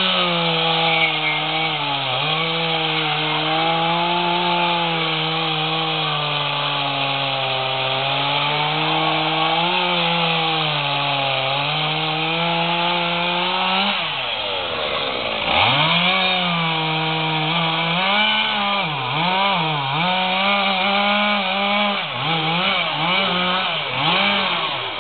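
Two-stroke gasoline chainsaw cutting into a wooden log. For the first half the engine holds at high revs under load, sagging slightly as the bar bites. About halfway through it drops almost to idle and revs back up, then it revs up and falls off repeatedly through a series of short cuts.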